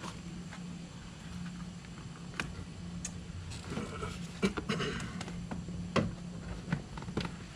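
Scattered clicks and knocks of plastic door trim being handled and pried loose from its double-sided tape, the sharpest about four and a half and six seconds in, over a steady low hum.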